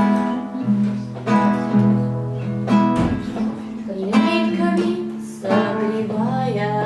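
Acoustic guitar playing a slow blues introduction, chords struck about once a second and left to ring.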